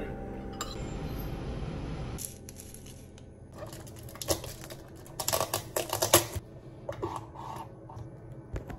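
Crinkling plastic and a run of sharp clicks and crackles as a large paper drink cup is handled, its plastic lid pressed and a straw pushed through it; the clicks are loudest around five to six seconds in. A steady hum stops about two seconds in.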